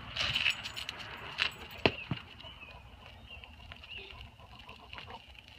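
Quiet outdoor ambience: a steady high-pitched hum in the background, with a few light sharp clicks and jingles about two seconds in.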